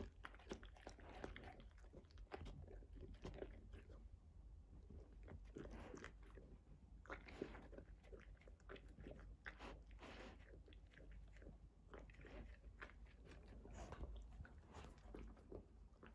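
A Labrador–golden retriever mix chewing a treat: faint, irregular crunches and bites.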